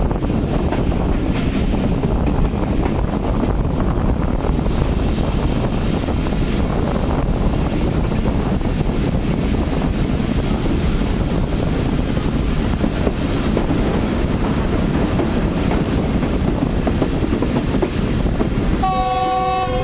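A train in motion: steady, loud running noise of the train on the rails. Near the end comes a short blast, about a second long, of a horn sounding several notes at once.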